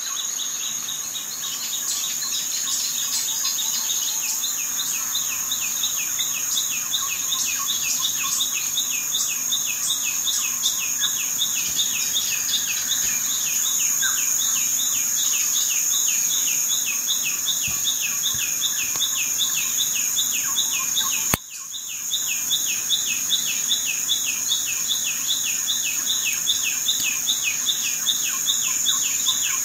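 Steady high-pitched insect trilling with a rapid, even series of short falling chirps, about four a second, like a cricket-and-bird nature ambience. It cuts out abruptly for a moment about 21 seconds in, then resumes.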